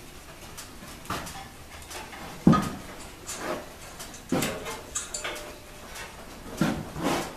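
A steel bandsaw blade being fitted over the wheels of a Delta bandsaw: the flexing band rattling and knocking against the machine's wheels and frame in a string of knocks and thumps, the loudest about two and a half seconds in.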